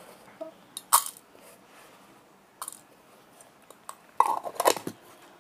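Handling noise from a small packet of mixed-size fishing hooks being opened and shown: a few sharp separate clicks and taps, the loudest about a second in, and a short cluster of rustling clicks near the end.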